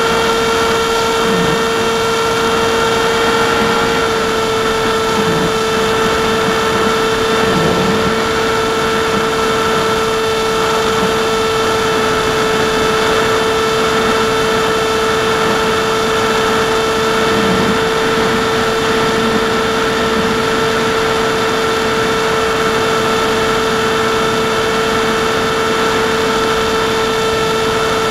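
The AXN Floater Jet's electric motor and pusher propeller running at a steady cruise throttle, heard from the camera on board: a steady whine at an almost unchanging pitch, over a rush of air noise.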